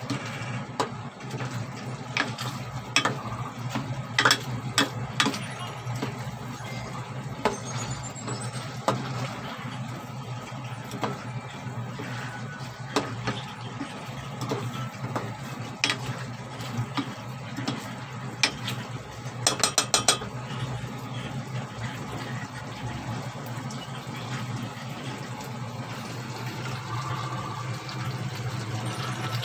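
Spoon knocking and scraping against a metal pot while pork ribs in sauce are stirred and ladled, in scattered clicks with a quick run of clicks about two-thirds of the way through, over a steady low hum.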